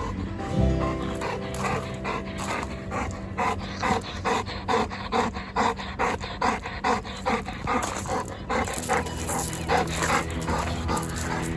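Golden retriever panting rapidly and evenly, about three breaths a second, over background music.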